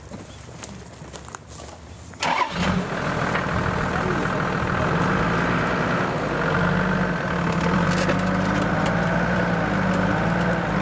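Toyota Land Cruiser 70-series engine starting suddenly about two seconds in, then running steadily.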